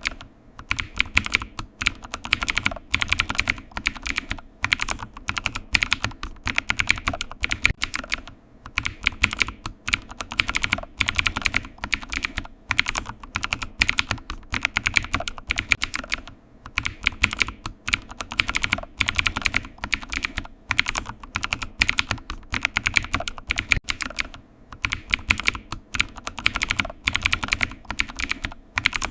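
Computer keyboard typing: a fast, continuous stream of key clicks with brief pauses about every eight seconds.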